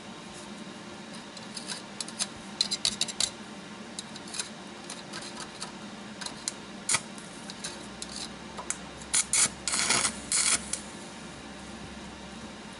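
Stick arc welding on a steel caster bracket: the arc crackles and sputters in short, irregular bursts as it is struck and broken, then runs for about two seconds near the end.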